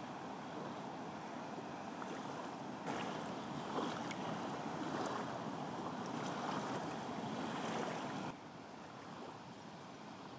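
Water rushing over a small waterfall, a steady white-water rush. It gets louder about three seconds in and drops back about eight seconds in.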